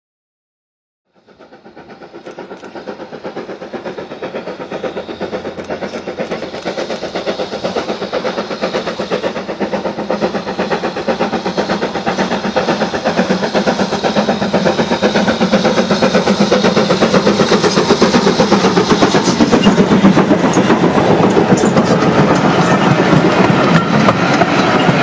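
A steam train running with a fast, even beat, fading in from silence about a second in and growing steadily louder.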